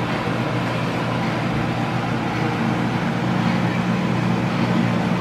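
A fan running: a steady low hum under an even rushing noise.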